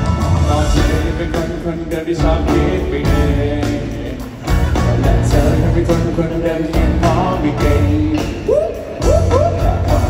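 Live pop-rock band playing with a male lead vocal, heard from the audience in a large arena, with a few rising pitch slides near the end.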